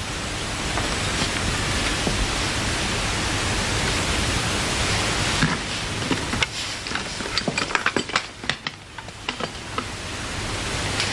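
Steady hiss of an old, worn broadcast or tape recording. A run of small clicks and knocks comes from about five and a half to nine and a half seconds in.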